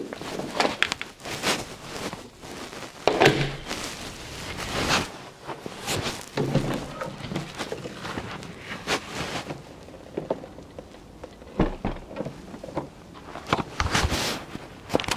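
Footsteps crunching in snow, an uneven series of crunches with no steady rhythm.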